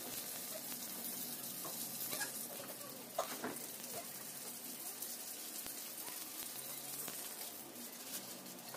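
Thin noodles deep-frying in hot oil in a wok, a steady sizzle, with a few scrapes of a spatula pressing and turning them in the pan.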